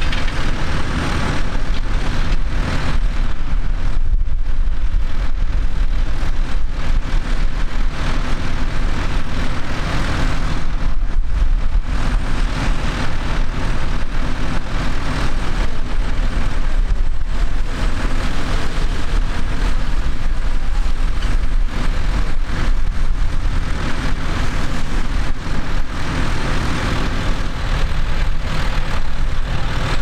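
Diesel tractor engines running steadily, a continuous low rumble.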